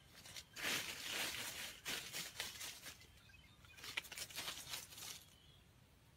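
Rustling and crunching in dry leaf litter, a run of crackly bursts starting about half a second in and stopping about a second before the end.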